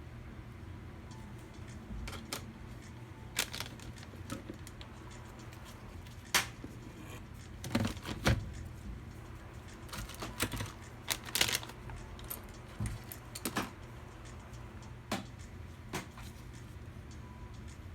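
Irregular clicks, taps and light knocks of small hard parts being handled during a PC build, over a steady low hum.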